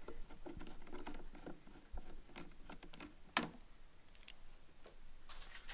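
A screwdriver backs out a Phillips screw from a plastic turn-signal housing: a run of small clicks and ticks, with one sharper click about three and a half seconds in.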